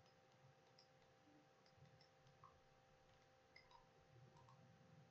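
Near silence: faint room tone with a steady low hum and a few faint, scattered computer mouse clicks.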